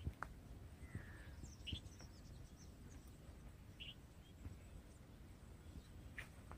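Quiet pondside ambience: a few short, high bird chirps spaced a couple of seconds apart over a faint low rumble, with a sharp click at the very start.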